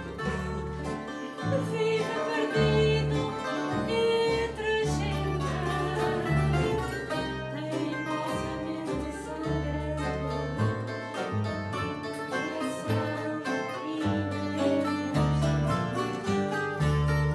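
Live fado: a woman singing, accompanied by two Portuguese guitars, two classical guitars and a double bass playing held bass notes.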